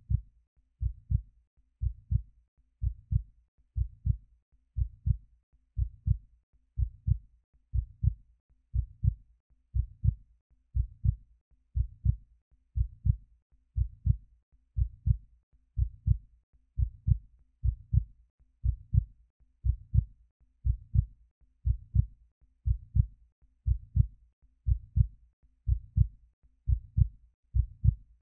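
Heartbeat: a steady low lub-dub, two quick thumps repeating about once a second.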